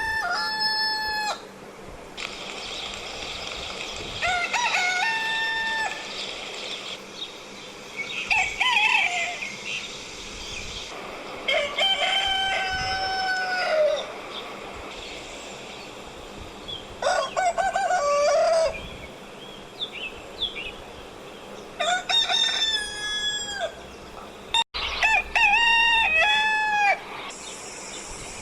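Roosters crowing, about seven cock-a-doodle-doo crows a few seconds apart, some at a slightly different pitch from others.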